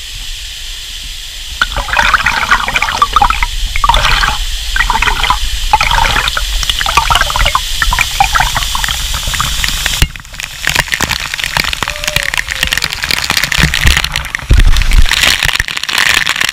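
Waterfall pouring into a pool, heard up close with water splashing around the microphone in a series of surges. The sound changes abruptly about ten seconds in.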